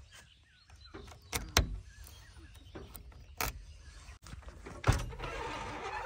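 Metal clicks and clunks from a JCB 3DX backhoe loader's cab door as its latch is worked and the door is opened, followed by boots on the steel step. There are a few separate knocks, the loudest about a second and a half in and again near five seconds.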